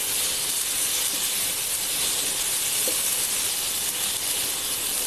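Chopped onions, tomatoes, cashews and dried red chillies sizzling steadily in hot oil in a nonstick frying pan as they are stirred with a wooden spatula.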